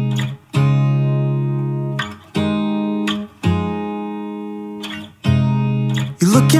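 Background music: guitar chords struck and left to ring, a new chord every one to two seconds.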